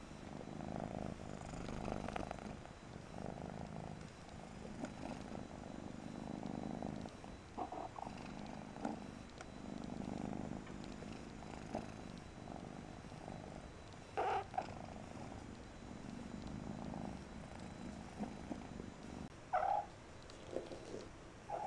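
Persian kitten purring, the purr swelling and easing with each breath. Two short higher-pitched sounds break in, one about two-thirds of the way through and one near the end.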